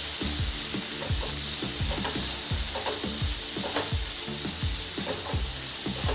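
Chopped tomatoes, peas and carrots sizzling in hot oil in a non-stick kadhai while a spatula stirs them, scraping across the pan in quick repeated strokes, about two to three a second. This is the sauté stage, with the tomatoes cooking down.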